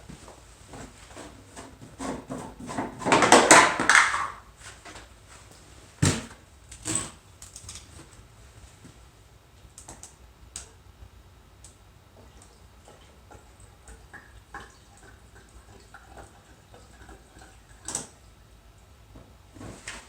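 Handling noises while gasoline is added to a two-stroke snow blower's tank. There is a loud, noisy stretch about two to four seconds in, sharp knocks around six and seven seconds and again near the end, and faint light ticks in between.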